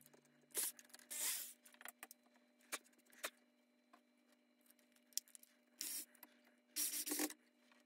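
Faint, short scraping and rubbing noises with a few sharp clicks, from a 3D-printed plastic cradle, screws and a drill-driver being handled and fitted against the machine's plate; the longest scrapes come about a second in and near the end.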